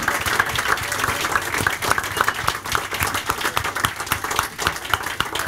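Audience applause: many hands clapping at once.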